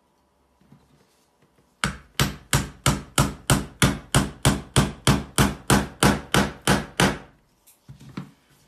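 A hammer striking a wooden plank tree stand in a steady run of about seventeen blows, roughly three a second, then a couple of lighter knocks near the end.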